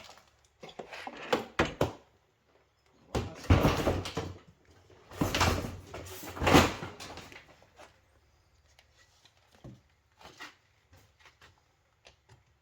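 Rattling, scraping and knocking of plastic and metal parts as a vacuum cleaner is pried and pulled apart for scrap. There are three longer bursts of scraping in the first seven seconds, then only scattered light knocks and clicks.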